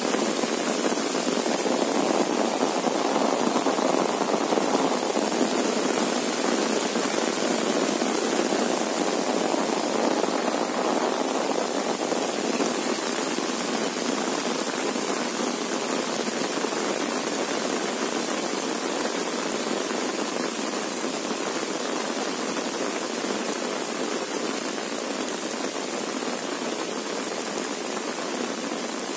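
Steady heavy rain falling on an umbrella held overhead and on the field around, a continuous even hiss that eases slightly toward the end.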